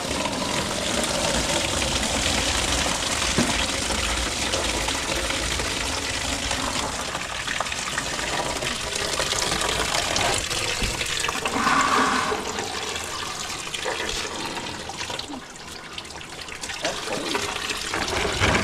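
Antifreeze coolant gushing from an unhooked radiator hose of a Cummins diesel's cooling system and splashing into a big bucket, a steady pouring rush that eases briefly near the end. The radiator has no petcock, so the cooling system is being drained by pulling the hose.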